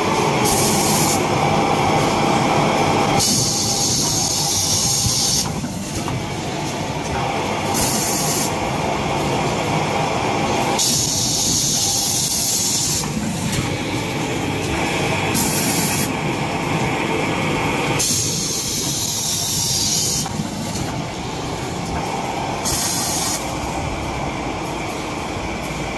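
Automatic tissue-roll packing machine running, a steady mechanical clatter broken by repeated bursts of hiss, each a second or two long, every few seconds as it packs paper towel and toilet rolls into film.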